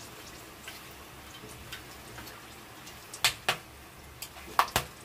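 Flat metal spatula clinking against a metal kadhai while whole spices fry in hot mustard oil: a few sharp clinks, the loudest as two quick pairs near the end, over a faint steady frying sizzle.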